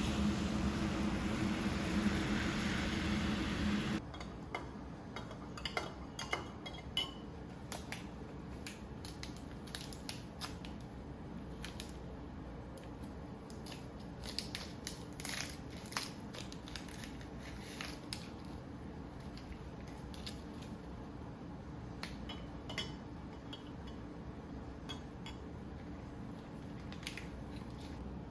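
A steady hum with a low drone for about four seconds that cuts off abruptly, then scattered light clicks and clinks of dishes and utensils being handled.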